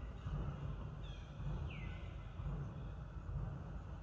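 Short high animal calls, two of them about a second and a half apart, each sweeping down in pitch and levelling off, over a steady low outdoor rumble.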